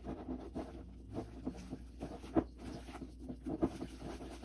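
Wire whisk stirring flour into thick cookie batter in a mixing bowl: a run of quick, irregular scraping strokes with a couple of louder clicks of the whisk.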